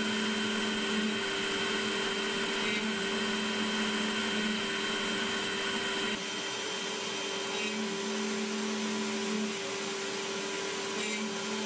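Makera Z1 desktop CNC spindle running a 1/8-inch single-flute end mill through a wood block on the rotary fourth axis. It is a contour finishing pass on the pocket sides: a steady whine, with a lower tone that comes and goes as the cutter moves along.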